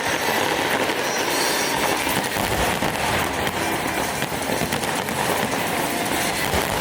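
Fireworks crackling densely and without a break, many small bursts blending into one continuous rolling crackle with no single big boom standing out.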